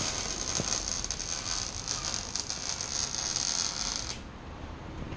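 Welding arc crackling steadily as the exhaust pipe is welded under a car during a muffler delete, cutting off about four seconds in.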